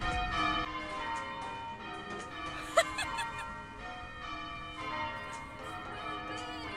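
Background music made of ringing bell-like tones, several notes held and overlapping, with one short sharp sound about three seconds in.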